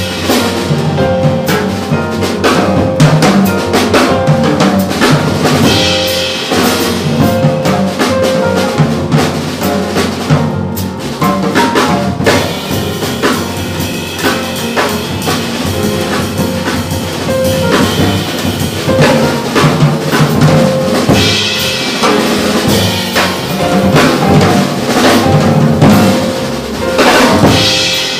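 Live small-group jazz: acoustic piano, double bass and drum kit playing together, with busy drumming on cymbals, snare and bass drum prominent.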